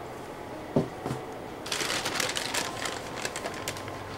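Two soft thumps about a second in, then a thin plastic shopping bag rustling and crinkling for about two seconds as it is handled.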